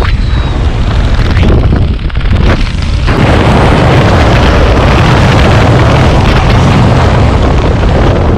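Freefall wind blasting across the camera microphone, a loud, heavy rush with a deep rumble. It is gusty at first and steady from about three seconds in.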